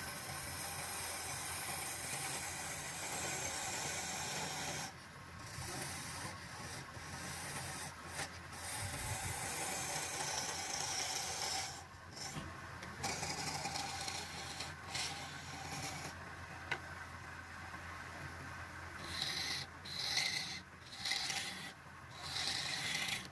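Wood lathe running with a steady hum while a flat chisel scrapes the spinning wooden blank, a hissing, rasping cut that pauses several times. Near the end the cutting comes in short, quick strokes.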